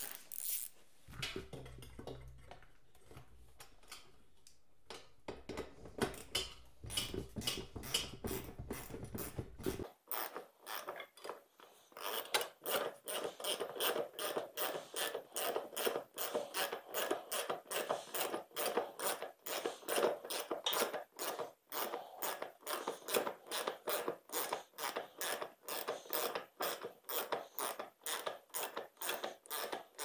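Socket ratchet wrench clicking as it runs the nut down on the mini bike's seat bolt. The first ten seconds hold scattered clicks over a low hum, then a long run of quick, even ratchet strokes as the nut is tightened.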